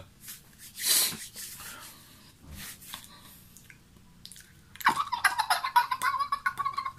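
A man imitating a fast-forwarding tape with his mouth. A few short breathy hisses, then about five seconds in a rapid, fluttering chatter at a steady pitch starts and keeps going.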